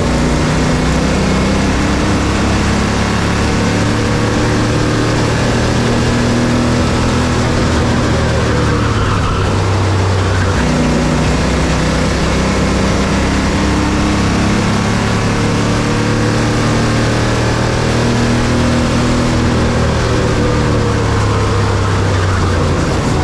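Bandolero race car engine running steadily at racing speed, loud and unbroken, its pitch shifting slightly a couple of times.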